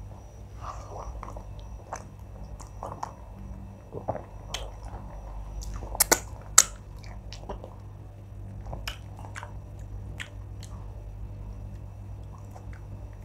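Close-miked chewing and wet mouth sounds of someone eating wheat fufu and oha soup with her hands, with many small clicks and squishes. Two sharp wet smacks stand out about six seconds in, as her fingers are in her mouth, over a low steady hum.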